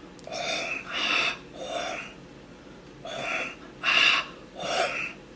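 A person's forceful, breathy exhalations, six in all, in two groups of three.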